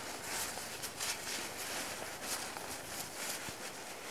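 Nylon fabric of a Helinox Chair Zero and its stuff sack rustling and scraping in uneven strokes as the rolled-up camp chair is pushed into the sack by hand.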